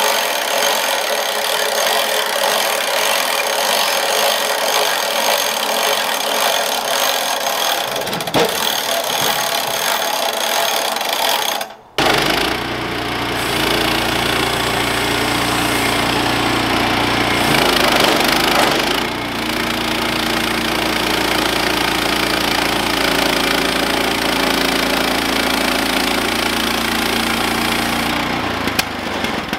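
Gas-engine portable bandsaw sawmill running with its blade sawing through a cedar log. The sound cuts out for an instant about twelve seconds in, then comes back fuller and deeper as the saw head comes closer.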